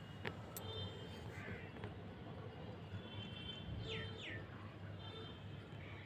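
Birds calling faintly in the background, with two quick downward-sliding calls about four seconds in, over a steady low hum.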